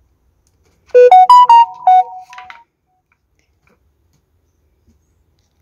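A short electronic jingle like a phone ringtone: a quick run of clean notes rising then falling, about a second and a half long, starting about a second in.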